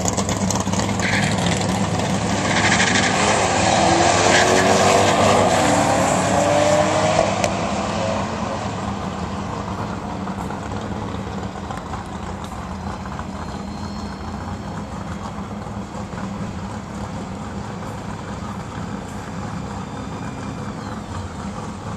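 A Mercedes CLK550's V8 and a BMW 335i's turbocharged inline-six launching together in a drag race, revving hard and climbing in pitch through the gear changes, loudest about four to seven seconds in. The engine sound then fades to a low, steady rumble as the cars run away down the strip.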